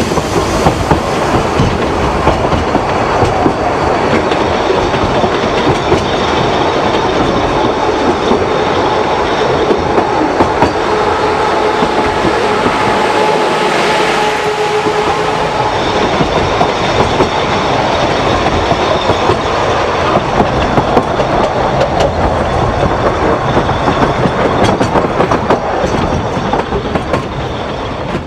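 Narrow-gauge Ffestiniog Railway train running, heard at an open carriage window: a loud, steady rumble with the clickety-clack of wheels over the rails, as the carriages of another train pass close alongside.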